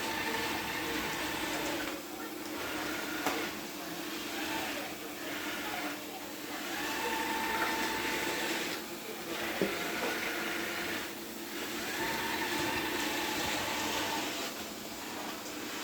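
Vacuum cleaner running, with a whine that comes and goes and brief dips in its sound every two to three seconds as it is moved.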